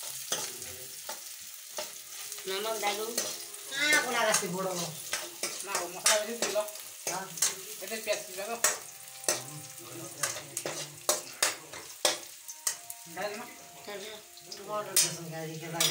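Metal spatula scraping and clinking against a steel kadai as sliced onions are stirred while frying in oil, with repeated sharp clinks over a steady sizzle.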